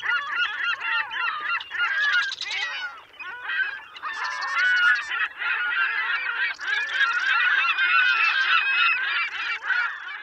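A flock of birds calling, many overlapping honking calls.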